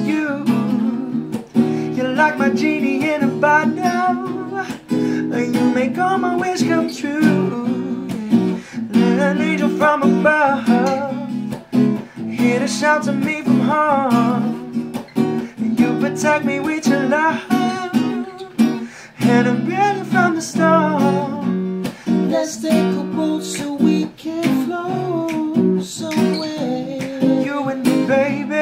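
Strummed acoustic guitar playing a song in a steady rhythm, under a wavering melody line.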